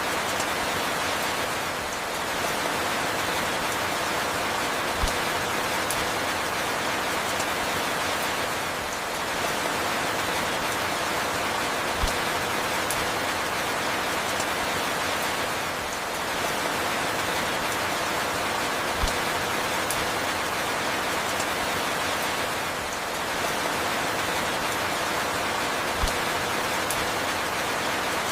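Steady rain falling, a dense even hiss with faint scattered drop ticks, swelling and easing slightly about every seven seconds. A short low thump sounds about every seven seconds.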